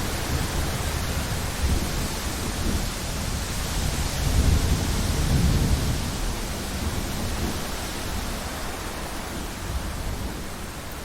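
Thunderstorm: steady rain hiss with a low roll of thunder that swells about halfway through and then dies away.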